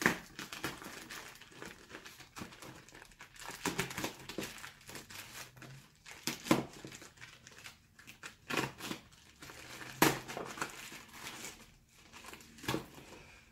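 Plastic shipping bag crinkling and crackling unevenly as it is slit with a utility knife and pulled open by hand, with a few sharper, louder crackles.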